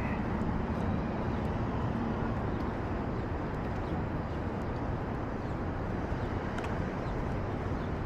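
Steady city street ambience: a low, even rumble of traffic, with no distinct events standing out.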